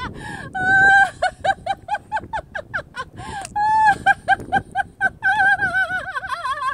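A woman laughing hard and without pause in a laughter-yoga exercise: quick high-pitched "ha-ha" pulses, broken by a few long, wavering squeals of laughter.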